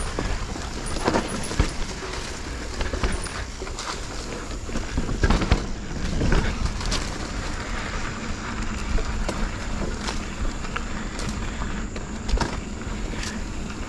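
Specialized Stumpjumper Evo mountain bike ridden over a dirt trail: a steady rush of tyre and riding noise with frequent knocks and clatters as the bike rattles over bumps.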